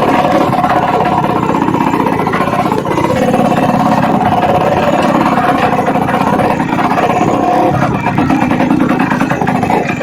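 Suzuki Samurai two-stroke motorcycle engine running steadily while riding, with small shifts in pitch.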